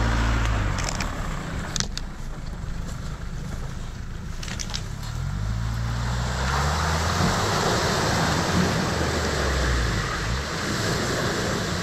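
Jeep Wrangler engine pulling away, easing off, then revving up again about halfway through as the Jeep ploughs into a muddy pool. A steady rush of splashing water and mud comes with it.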